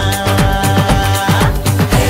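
Loud dance music with a fast, steady beat; a held high note drops out about one and a half seconds in.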